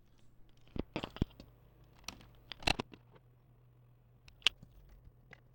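Scattered sharp clicks and light knocks from hands handling laptop hardware, over a faint steady hum.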